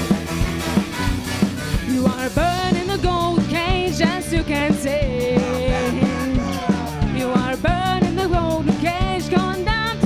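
A band with a horn section playing live: drums keeping a steady beat under electric guitar, saxophone, trombone and trumpet, with a wavering melody line coming in about two seconds in.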